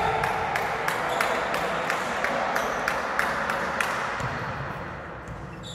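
Volleyballs being struck and bouncing on a hard sports-hall floor in an even run of sharp knocks, about three a second, that echo around a large, empty hall. The knocks die away near the end.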